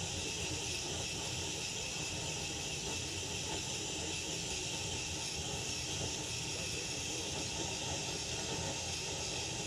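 Handheld propane torch burning with a steady hiss, its flame aimed into a tin can to melt bismuth chips.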